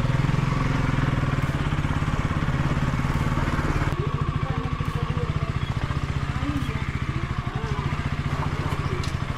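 Motor vehicle engine running steadily while travelling along a small road, with a fast, even firing pulse.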